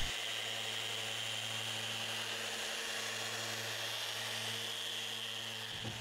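Electric random orbital sander running steadily on a bare wooden slab tabletop: a constant high whine over a low hum, easing off near the end.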